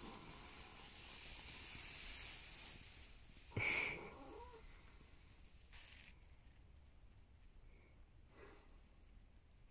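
Horse lying asleep on straw, breathing: a long soft hissing exhale through the nostrils, a short sharp sound about three and a half seconds in, then fainter breaths.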